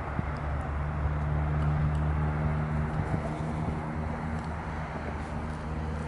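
A steady low motor hum, swelling slightly in the middle, over a rushing outdoor noise.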